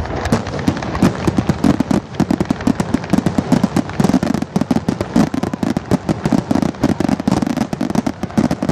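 Fireworks going off in a rapid, unbroken barrage of sharp bangs and crackles, many per second.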